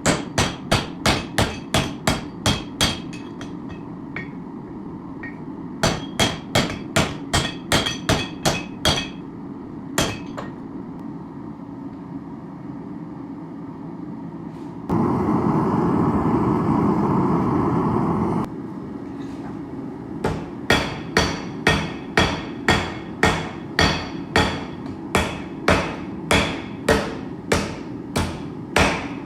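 Hand hammer blows ringing on hot steel as the hatchet's eye is worked over a shaping tool, in quick runs of about three strikes a second with pauses between. A steady low rumble runs underneath, and a louder even rushing noise takes over for about three and a half seconds midway.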